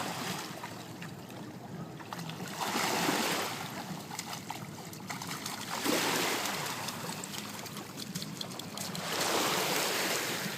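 River water washing and splashing at the bank, with small splashes and ticks throughout and three louder surges of water, about 3, 6 and 9 to 10 seconds in.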